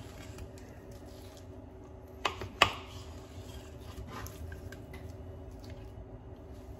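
Knife cutting through a mahi fillet, working the bones out down the middle, with faint wet scraping over a steady low hum. Two sharp knocks come close together about two and a half seconds in, the second louder.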